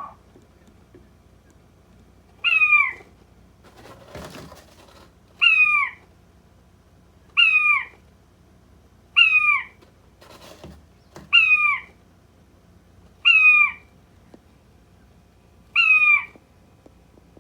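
King quail calling: a short, falling, cat-like mew, repeated seven times about every two seconds. Two brief rustling noises fall between the calls.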